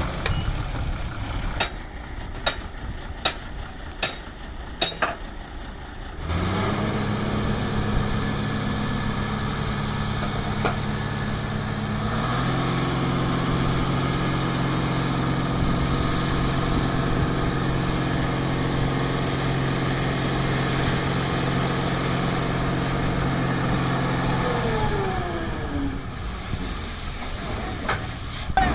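Five sharp clicks about a second apart. Then a heavy vehicle's engine starts up about six seconds in and runs steadily. Its tone changes about twelve seconds in, and it falls away near the end.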